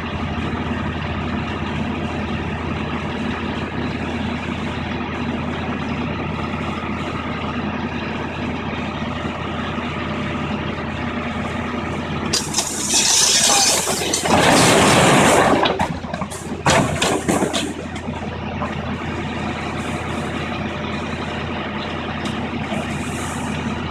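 Diesel engine of a long-reach demolition excavator running steadily. About halfway through comes a loud crash of masonry and debris falling as part of an old building's upper wall collapses, lasting a few seconds, followed by several sharp impacts of falling pieces.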